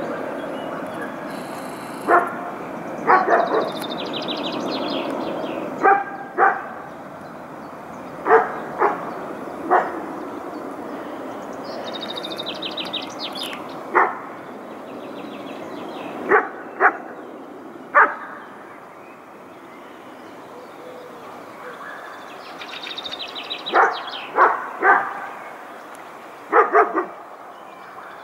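A dog barking in short single and double barks every few seconds, over a steady background rumble that slowly fades.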